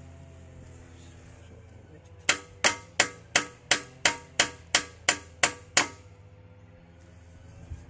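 Starter solenoid on a Kubota B4200's diesel clicking rapidly, eleven sharp metallic clicks about three a second, while the starter fails to crank the engine: the starter is not kicking in properly.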